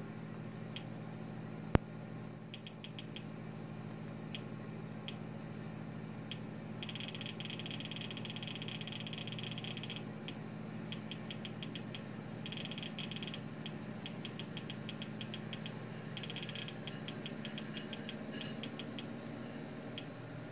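Small plastic button clicks, most likely a Fire TV remote being pressed to scroll down a menu. There is one loud click about two seconds in, then scattered single clicks and several runs of rapid clicks, over a steady low hum.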